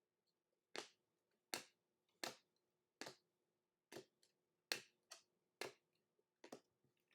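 Glossy trading cards being flipped or slid off a stack one at a time, a short sharp click or snap with each card, about one every second.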